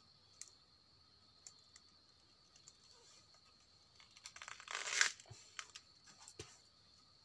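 Rustling, crackling and tearing of plant material, a few scattered clicks and then a short crackling burst about five seconds in, the loudest part, followed by a few more snaps.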